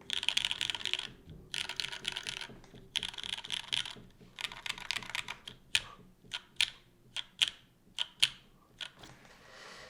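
Keystrokes on a Hiney Ladybird top-mount keyboard with an aluminum plate, lubed and filmed Cherry MX Black linear switches and CRP keycaps. Three quick runs of rapid keypresses across the letter keys, then about a dozen single keystrokes spaced apart.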